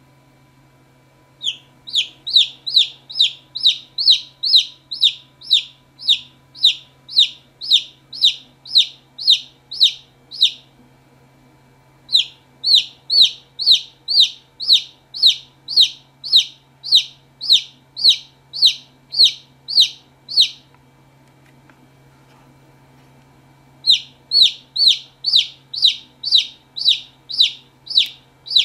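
Newly hatched Fauve de Hesbaye chick peeping: short, high peeps that fall in pitch, about two and a half a second, in three runs with pauses of a second or two between them. A faint steady low hum lies underneath.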